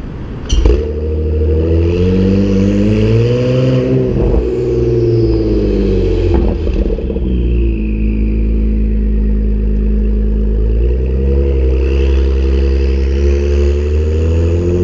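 2017+ Acura NSX's twin-turbo V6 running through a PRIDE valved exhaust with catted downpipes, pulling away. Its pitch rises for a few seconds and drops about four seconds in, then holds a steady drone before climbing again near the end. A sharp crack sounds about half a second in, and a faint high whine rises and falls with the revs.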